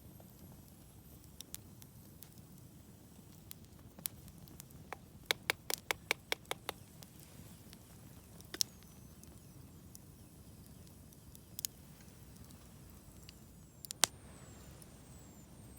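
Wood campfire crackling: scattered sharp pops, with a quick run of them about five seconds in and the loudest single pop near the end.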